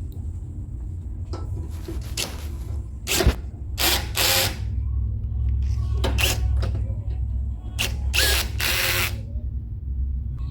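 Power drill driving screws into the grill's sheet-metal side panels in several short bursts.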